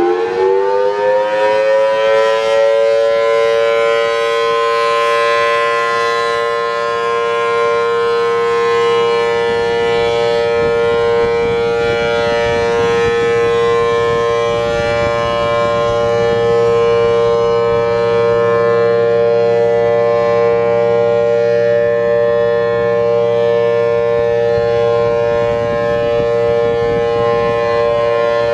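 Federal Signal Thunderbolt 1000T civil-defense siren with a 4/5-port chopper. It finishes winding up to full speed in the first second or two, then holds a loud, steady dual tone a major third apart: the Full Alert steady-tone warning signal.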